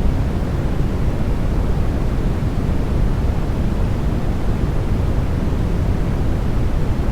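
Steady sleep-aid white noise, a constant rushing hiss with most of its weight in the low end and little treble, so it sounds deep rather than bright.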